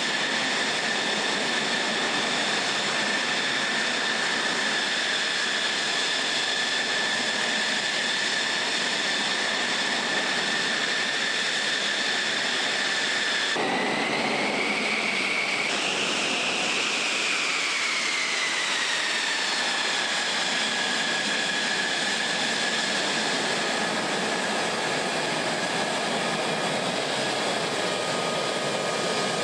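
F-16 fighter jet engine running on the ground, a steady high whine over a rushing noise. About halfway through the sound changes abruptly, and the whine bends up a little, then slides down over a few seconds and holds steady again.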